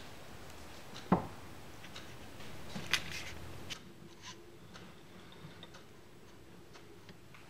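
Handling noises of small shop tools on a metal lathe: a sharp knock about a second in, a click about three seconds in, then faint scattered ticks as a dial indicator is set against the test bar.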